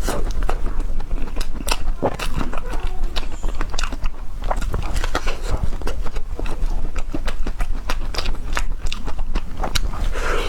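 A person biting and chewing crunchy cream puff ice cream: a dense, irregular run of crisp crunches and clicks.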